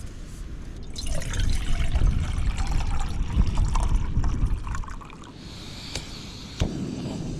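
Water pouring and trickling, over a low rumble of wind buffeting the microphone.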